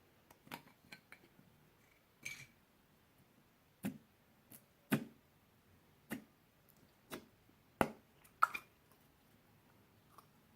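Slime mixed with magic clay being squeezed and stretched by hand, giving sharp clicking pops of trapped air at an uneven rate of about one a second.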